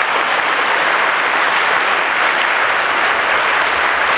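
Audience applauding: steady, loud clapping from a large crowd.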